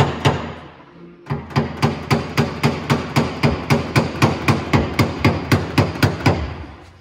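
A small hammer tapping a knockdown punch against a car's steel rear quarter panel in a quick, even run of sharp taps, about three a second, with a short pause about a second in: paintless dent repair, working the dent back out without repainting.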